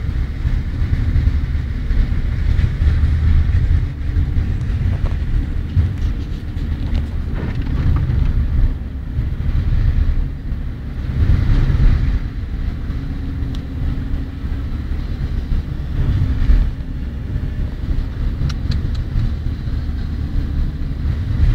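Car engine and tyre noise heard from inside the cabin, a steady low rumble as the car drives slowly over a wet road strewn with hail and slush.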